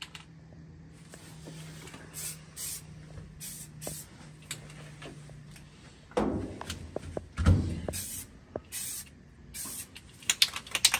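Aerosol spray paint cans giving short bursts of spray, several light passes of black one after another. Near the end comes a quick rattle of a can's mixing ball being shaken.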